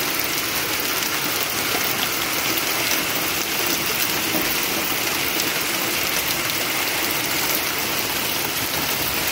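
Heavy hail mixed with rain pelting the metal bodywork of parked cars and the ground: a dense, steady hiss of falling water, with many small ticks of hailstones striking.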